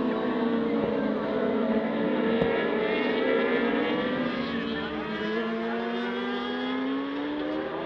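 Several 600cc supersport race motorcycles running hard on track, their engine notes overlapping and rising and falling in pitch as they rev and shift gears.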